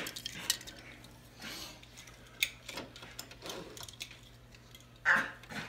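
Light clicks and clatter of die-cast toy cars being handled and set into a plastic track's starting gate, with a sharper click about halfway through and a louder knock near the end, over a faint steady hum.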